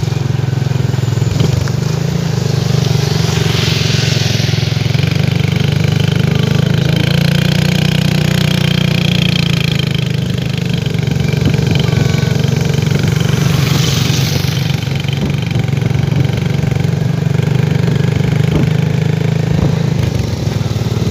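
Small motorcycle engine running steadily at cruising speed, heard from a motorcycle riding along an unpaved dirt road. A rushing hiss swells briefly twice, about four and fourteen seconds in.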